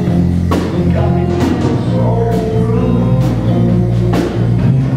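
Live blues band playing an instrumental passage: amplified harmonica over electric guitar, bass and drums, with drum hits at a steady beat.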